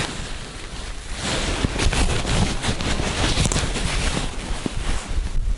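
Wind buffeting the microphone: a steady rushing with a low rumble that grows louder about a second in.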